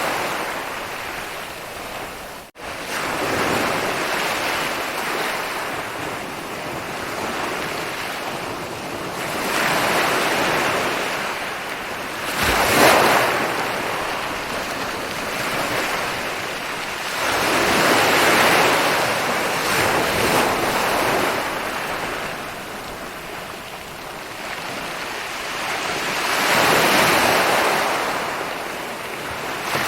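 Ocean waves rolling in and breaking on a beach, the surf swelling and fading every few seconds. There is a brief drop-out in the sound about two and a half seconds in.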